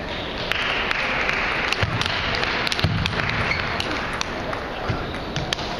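A table tennis rally: the ball clicking sharply off the bats and the table several times in an uneven rhythm, with a few low thuds of the players' feet on the floor.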